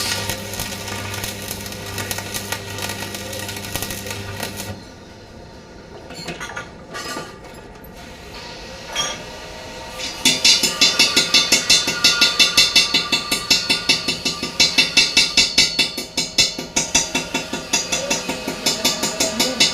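A steady buzzing hum for the first few seconds, then scattered knocks. About halfway through, a hammer starts striking metal in rapid, even blows, several a second, sharp and ringing.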